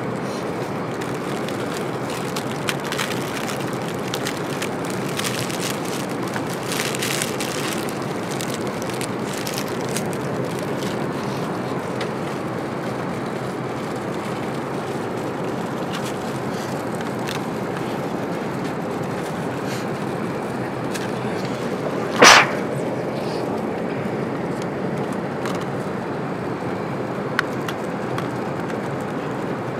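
Steady rushing cabin noise of an Airbus A380 airliner in flight. Small clicks come from the meal tray being handled, and one sharp knock sounds about three quarters of the way through.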